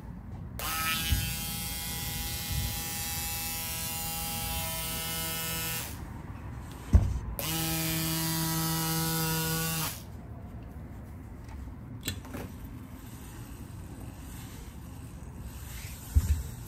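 Small electric motor running steadily at one pitch in two spells, about five seconds and then about two and a half seconds, with a sharp knock in the gap between them and a couple of lighter knocks near the end.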